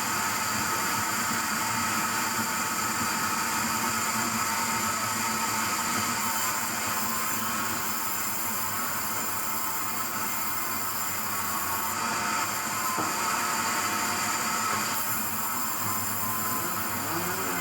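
Sawmill machinery running steadily: a continuous mechanical whir with a few held, whining tones.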